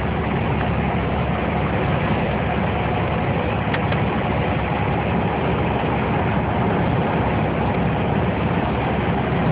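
Steady engine and travel noise heard from inside a vehicle's cabin, an even drone with no thunderclap.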